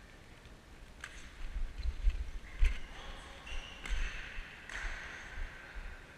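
A badminton rally: sharp racket strikes on the shuttlecock, the loudest about two and a half seconds in, with heavy footsteps thudding and shoes squeaking on the court floor.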